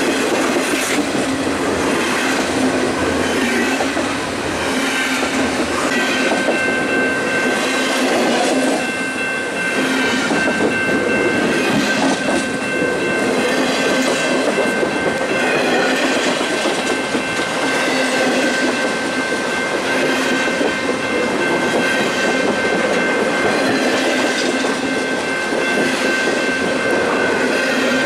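Long freight train of autorack and double-stack well cars passing close by, a loud steady rolling rumble with repeated clicking of the wheels. A steady high-pitched whine joins about six seconds in and holds through most of the passage.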